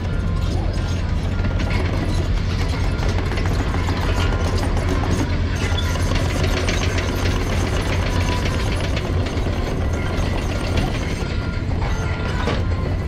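Excavator engine running steadily with a deep hum, with scattered clanks and clicks of the machine working.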